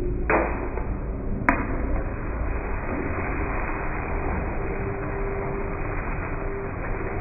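Two sharp metal clacks of a chef's spatula striking a teppanyaki griddle, about a second apart near the start, followed by a steady hiss.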